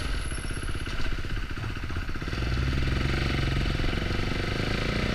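Motorcycle engine at low revs with its firing pulses plain to hear. About two seconds in it settles into a steadier, slightly louder drone as the bike pulls away.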